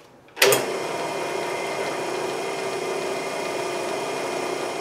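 Drill press switched on about half a second in with a sharp start, its motor then running steadily with an even hum.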